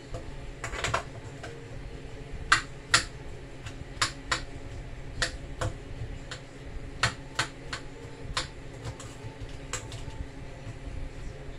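Knife cutting cooked cabbage, its blade striking the board in sharp, irregular clicks, sometimes two close together, over a steady fan hum.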